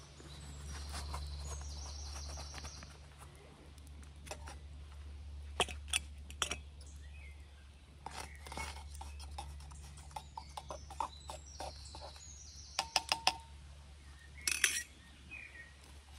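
Scattered clinks and knocks of a stainless steel camping pot and its lid being handled on a campfire, with a quick cluster of knocks and a louder one near the end. A small bird sings a short trill twice in the background.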